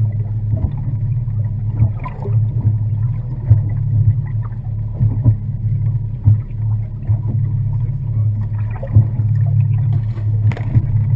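A boat's engine running steadily with a low hum, with irregular knocks and thumps over it.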